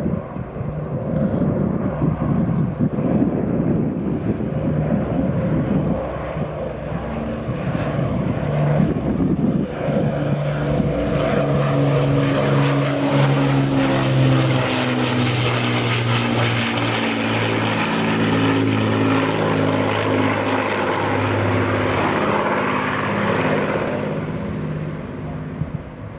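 Avro Lancaster's four Rolls-Royce Merlin piston engines running in a flypast. A rough rumble comes first, then a steady engine note that slowly falls in pitch as the bomber passes, easing off near the end.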